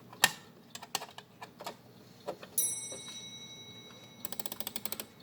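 Winding crank turning in a 1910 Gustav Becker weight-driven wall clock, its click ratchet clicking unevenly, then in a quick run of about ten clicks a second near the end. About halfway through, a single clear metallic ring sounds and slowly dies away.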